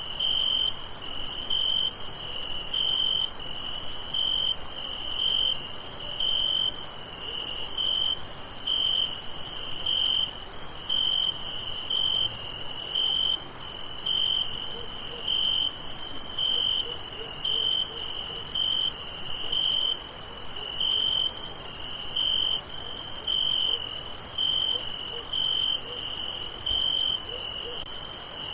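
Crickets chirping at night: a steady, rhythmic chirp, about two a second, over a continuous high hiss.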